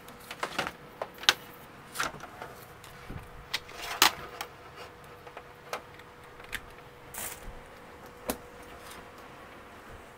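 Irregular clicks and knocks from hands handling a plastic LCD TV casing and pushing its power plug into a wall socket, over a faint steady tone.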